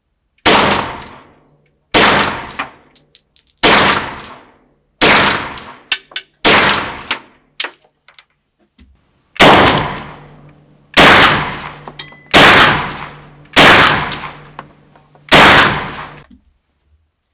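Kel-Tec SUB2000 carbine in 9x21 firing ten slow, aimed semi-automatic shots, about one every second and a half, in two strings of five with a pause of about three seconds between them. Each shot rings on in the small enclosed firing booth, with light metallic clinks between the shots.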